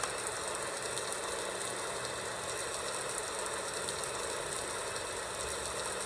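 White noise machine playing its recorded rain sound through its small built-in speaker: a steady hiss with faint fine patter, under a faint steady hum.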